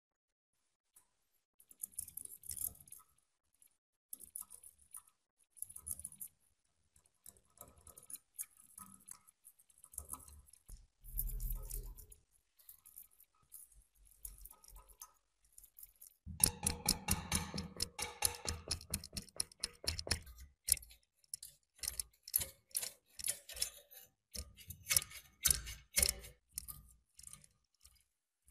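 Small metal pick and scraper picking and scratching at rust and packed dirt in a rusty antique meat grinder. Scattered short scrapes at first, then a rapid run of scratchy ticks from about halfway on.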